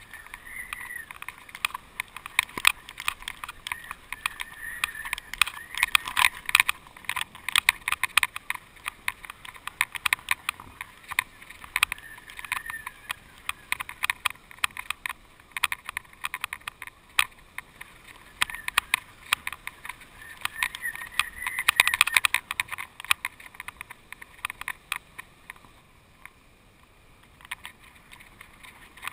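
Irregular clicking and rattling from a kite-borne GoPro camera rig shaken by the wind, with a faint wind hiss. The rattling comes in bursts, is heaviest about three-quarters of the way through and eases off shortly before the end.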